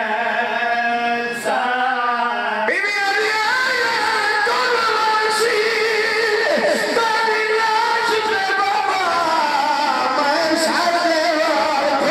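A man's voice singing a noha, a Muharram lament, into a microphone, amplified through a PA, with long held and wavering notes.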